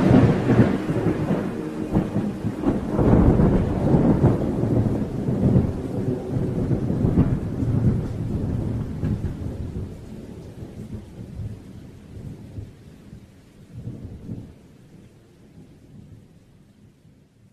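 Thunder with rain: a sharp thunderclap right at the start, then a long rolling rumble that gradually dies away over the following fifteen seconds.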